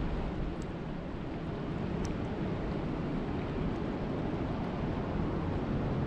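Steady rain falling on a lake, an even, deep hiss with a few faint drop ticks.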